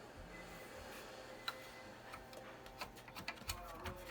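Smith Corona typewriter clicking faintly: a single tick about 1.5 s in, then a run of quick, irregular light clicks in the last two seconds.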